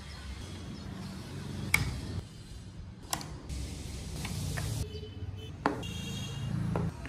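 Small carved wooden parts of a model car being handled, lifted off and fitted, giving about five sharp wooden clicks and taps over a low steady hum.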